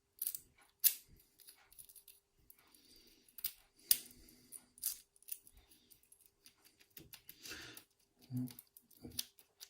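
Key being worked in a freshly rekeyed Yale euro cylinder lock: a string of sharp metallic clicks and ticks as the key goes in and turns the cam, with keys jangling.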